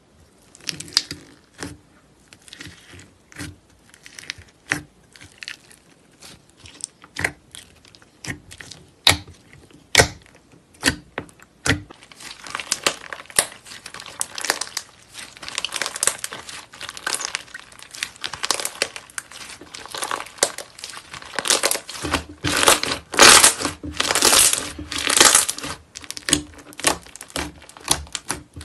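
Slime being worked by hand. For about the first twelve seconds there are separate sharp clicks and crackles as fingers press into slime topped with pink clay ring charms. After that comes a dense crackling and crinkling as fluffy slime is stretched and folded, loudest near the end.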